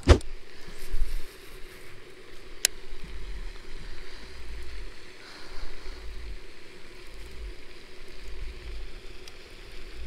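Wind gusting on the microphone in low, rumbling buffets that come and go, over a faint steady hum, with one sharp click a little under three seconds in.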